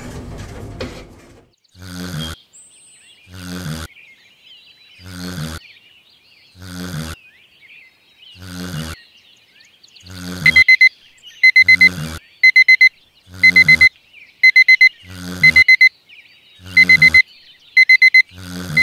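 Snoring, one snore about every one and a half to two seconds. About halfway through, a digital alarm clock starts beeping in quick groups of four, about one group a second, and the snoring goes on under it.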